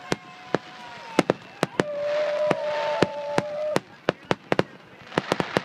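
Aerial fireworks bursting: sharp bangs in quick runs with crackle between them, the crackle heaviest in the middle. Held whistling tones sound over the crackle for a second or two in the middle.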